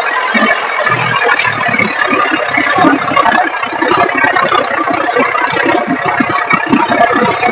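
New Holland 3630 tractor's diesel engine running steadily, with a dense rattling clatter.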